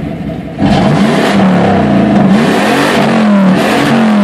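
1994 Pontiac Trans Am's LT1 V8 through a Flowmaster cat-back exhaust with a Spintech muffler, getting much louder about half a second in and then revving up and down several times.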